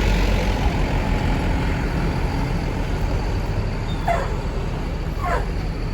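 Steady low rumble of a running vehicle engine, with two short yelps falling in pitch about a second apart near the end, from a dog.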